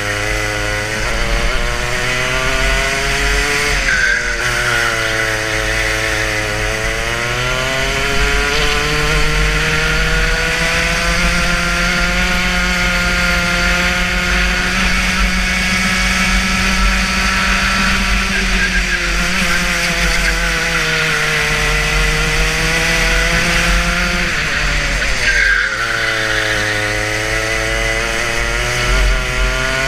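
Racing kart engine at full throttle on track, its pitch climbing steadily along the straights and falling off sharply as it lifts and brakes for corners, several times over. The longest climb holds high for several seconds in the middle.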